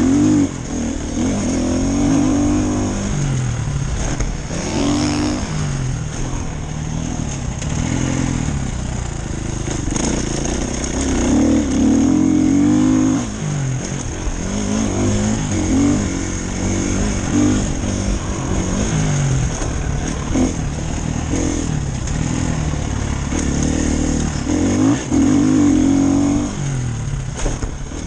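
Motocross dirt bike engine, heard from the rider's helmet, revving up and dropping back over and over as the bike accelerates and backs off around the track.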